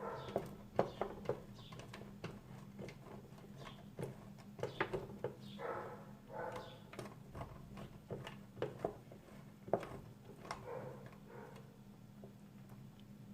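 Irregular light taps and knocks, a few every second, with a few brief rustling or scraping noises, over a faint low steady hum.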